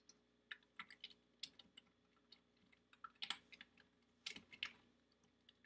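Faint computer keyboard typing: irregular keystrokes in short bursts, the busiest clusters about three and four and a half seconds in.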